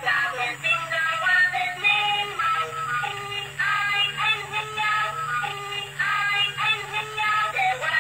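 Battery-operated toy train's sound chip playing a tinny electronic melody of short stepped notes, over the steady hum of its small drive motor.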